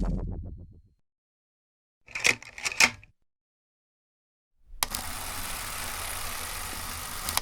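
Film-gate sound effect: the mechanical rattle of film running through a gate. A previous rattle fades out at the start, then three or four sharp clicks come in a quick cluster. After a pause, a steady whirring rattle runs for about two and a half seconds, starting and ending with a click.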